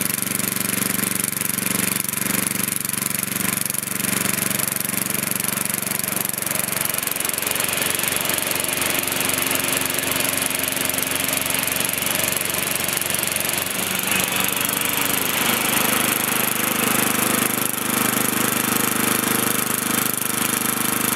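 An 11 hp riding lawn mower engine running steadily while the newly fitted mower deck's blades are engaged and then disengaged as a test. The engine sound changes character about 7 seconds in and again about 15 seconds in.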